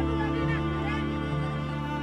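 Background music of bowed strings, such as violin and cello, holding long notes that change only slowly.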